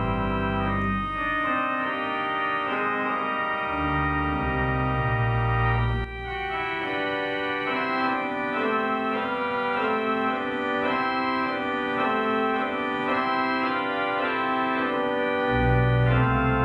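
Organ postlude closing the service: sustained chords that change every second or so, with deep pedal bass notes that drop out for long stretches and come back near the end.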